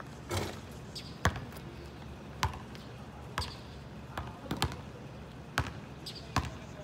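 A basketball hitting the hoop just after a shot, then bouncing on an asphalt court a dozen or so times at uneven spacing as it is picked up and dribbled.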